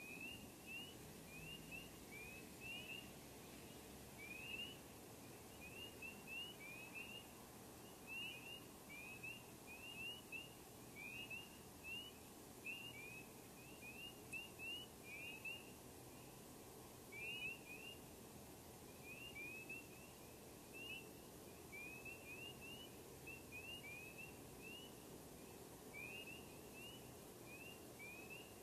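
Faint night chorus of small frogs peeping: many short rising peeps, several a second from overlapping callers, over a faint steady low background rumble.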